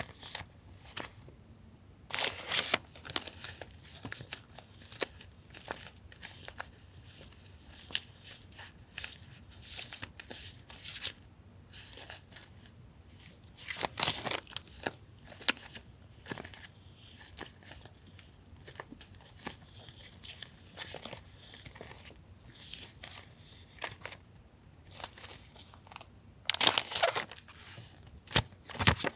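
Sticker sheets and background papers being handled: irregular paper rustling and crinkling, with louder bursts a couple of seconds in, midway and near the end.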